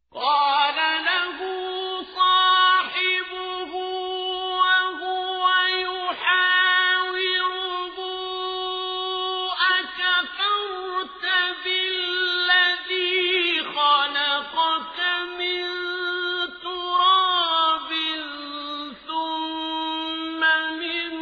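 A man's voice reciting the Quran in slow, melodic tajweed style. It holds long notes with ornamented turns, broken by short pauses every few seconds. The recitation begins suddenly out of silence.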